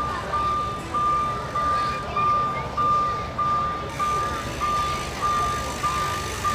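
Electronic warning beeper sounding one high beep over and over, about one and a half beeps a second, over a low rumble.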